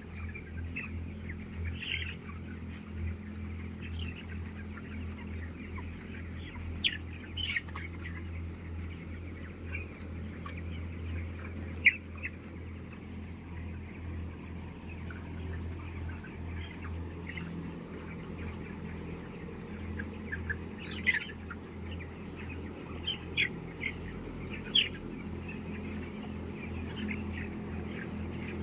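Chickens clucking and calling, with scattered short calls through the whole stretch over a steady low hum.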